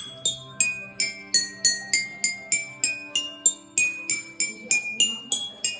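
Toy xylophone struck with a mallet about three times a second, bright ringing notes stepping up and down the scale.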